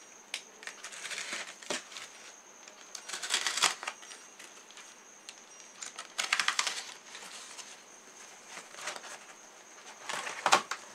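Cardboard box being opened by hand: packaging rustling and scraping in several irregular bursts, with a few sharp clicks.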